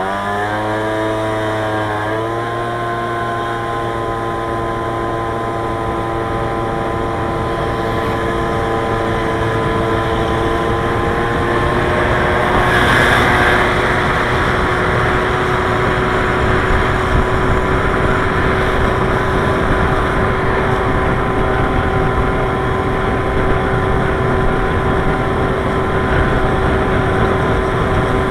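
Motorcycle engine rising in pitch as it pulls away over the first two seconds, then running at a steady pitch while cruising, under a constant rush of wind and road noise. The rush swells briefly about 13 seconds in.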